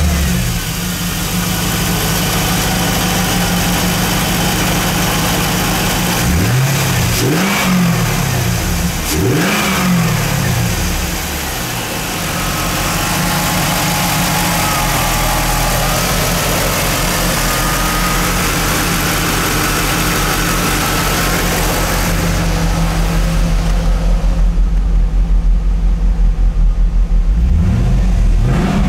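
2001 Pontiac Trans Am's 5.7L LS1 V8 idling steadily, blipped twice in quick succession about seven and nine seconds in. From about twenty-two seconds on it is heard from inside the cabin, muffled, with a low pulsing idle, and starts to rev again near the end.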